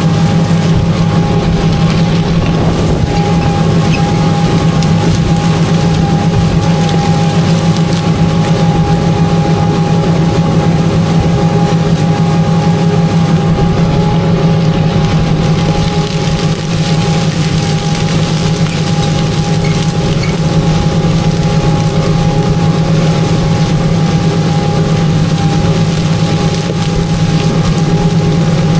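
Tractor engine running steadily under load while pulling an in-line ripper, a low drone with a thin steady whine above it.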